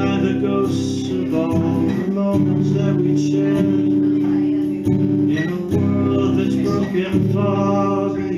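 Acoustic guitar strummed in held chords that change every second or two, with a man singing over it.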